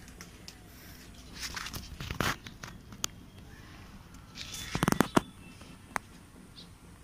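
Selfie stick with built-in tripod legs being handled and collapsed: scattered plastic and metal clicks and rattles, with the loudest clatter about five seconds in.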